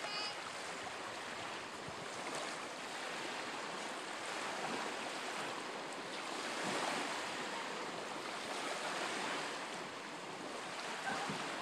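Small waves on choppy water washing and lapping, a steady rushing hiss with wind mixed in.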